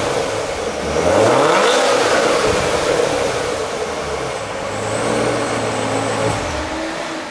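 Stock C7 Chevrolet Corvette V8 revving through its factory exhaust in Stealth mode. The revs climb about a second in, hold, rise again near five seconds, then fall away near the end.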